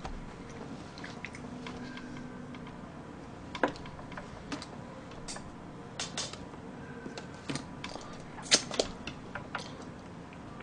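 Scattered sharp clicks and taps over a faint steady hum, two louder ones about three and a half and eight and a half seconds in, from a slice of chocolate cake being cut with a plastic knife, lifted and eaten.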